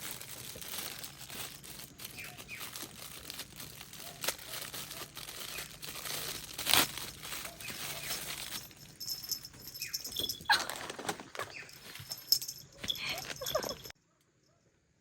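Plastic packaging crinkling and rustling with scattered clicks as pet-food packets are handled. The sound cuts off suddenly about a second before the end.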